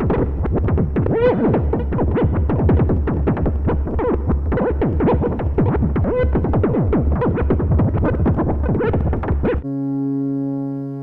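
Eurorack modular synthesizer playing a dense stream of fast percussive hits with short pitch sweeps over a pulsing bass, shaped by trigger-driven one-shot envelopes. Near the end it cuts suddenly to a sustained chord that swells slowly.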